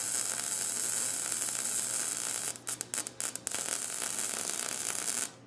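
Gas-shielded MIG welder arc crackling steadily as a bead is run around a threaded pipe joint on an exhaust header pipe. It breaks off in a few quick stops and restarts a little after halfway, then cuts off just before the end.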